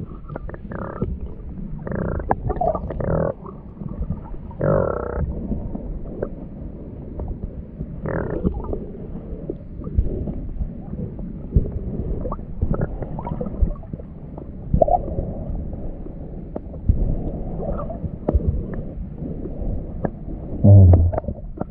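Muffled underwater sound of a hand digging and stirring the sandy seabed in shallow seawater, heard through an underwater camera: rumbling water movement with scattered knocks and clicks. A loud, low, muffled thump comes near the end.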